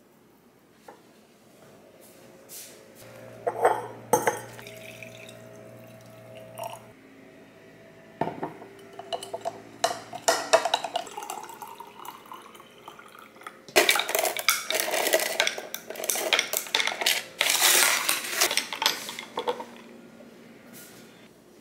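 Metal spoon clinking and scraping against a glass mason jar while stirring honey into a liquid: scattered clinks at first, then a few seconds of fast, continuous clinking past the middle.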